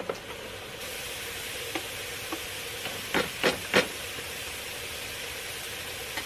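A chopstick stirring soju into beer in a glass mug, clinking against the glass three times about three seconds in, after a sharp knock at the start. Under it, a steady sizzle of marinated galbi cooking on a griddle.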